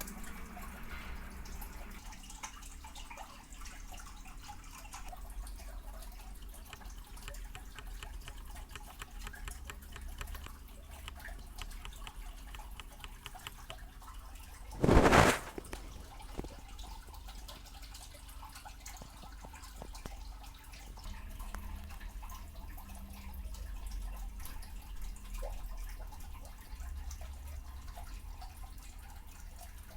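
Handling noise from unboxing a mechanical keyboard: many light clicks and taps over a low steady hum, with one brief, loud noise about halfway through.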